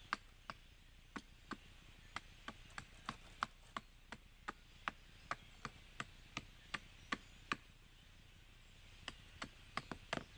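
Repeated sharp chopping strikes on wood, about two to three a second, with a short pause near the end before the strokes resume.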